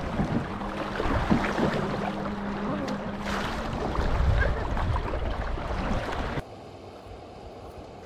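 Water splashing and sloshing around a canoe being paddled, with scattered knocks. About six seconds in it drops suddenly to a quieter, steady rush of river water.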